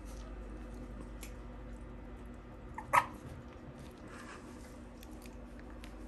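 A four-week-old Pomsky puppy gives one short, high yip about three seconds in, over a steady low hum.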